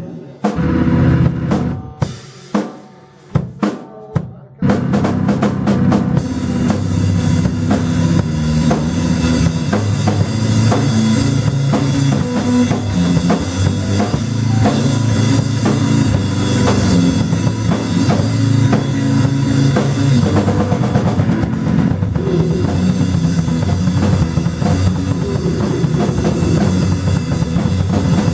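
Live band playing loud noise rock, with a drum kit driving it. In the first few seconds the band breaks off to a few isolated drum hits, then comes back in with full, continuous playing.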